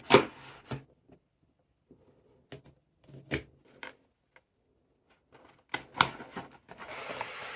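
Cardboard speedcube packaging being handled and opened, giving a scattering of sharp clicks and taps. Near the end a steady scratchy rustle starts.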